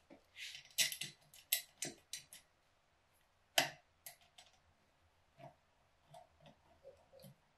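Small metal clicks and ticks of screws being handled and started with a screwdriver into a carburetor's top plate: a quick run of clicks in the first two seconds, one louder click about three and a half seconds in, then lighter scattered ticks.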